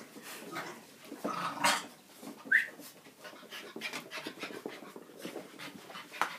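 Norwich terrier puppies play-fighting with a small black dog: panting and scuffling, with a short high yelp about two and a half seconds in.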